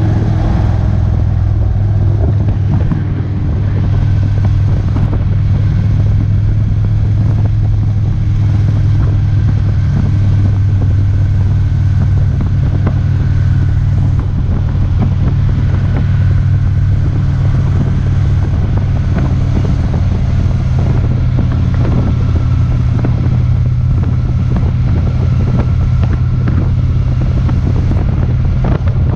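Victory Cross Country motorcycle's V-twin engine running steadily at cruising speed, a loud, even low drone that hardly changes throughout.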